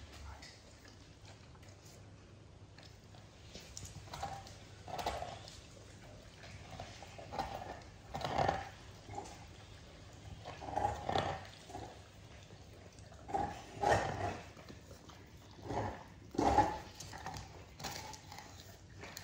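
German Shorthaired Pointer licking and chomping frozen ice cream in a stainless steel bowl, its tongue and the metal bowl knocking and scraping on the tiled floor in irregular bursts a second or two apart.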